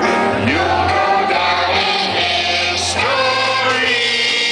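Music with several voices singing together, the notes held and wavering over a steady low accompaniment.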